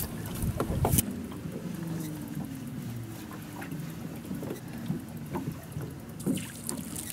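Fishing boat's machinery running with a steady low hum on deck, with a few sharp knocks and clicks at the start, about a second in, and near the end.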